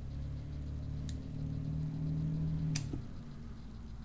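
A sharp plastic click about three seconds in as a small screwdriver pries the plastic pin spacer of a radio receiver's header pins, over a low steady hum that stops right after it.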